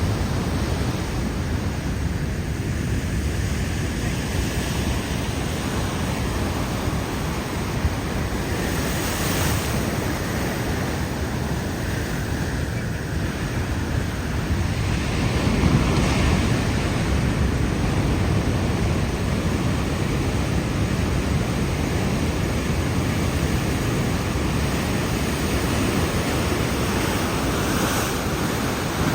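Ocean waves breaking and washing ashore, a steady rushing surf with wind buffeting the microphone; one wave surges louder about halfway through.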